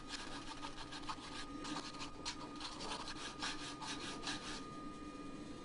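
Round chainsaw file rasping back and forth along a groove in a hard spring-steel punch clamped in a vise, at about three strokes a second. The strokes stop about four and a half seconds in.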